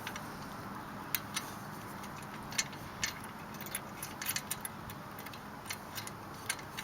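Irregular light clicks and taps, a dozen or more scattered unevenly, over a steady background hiss.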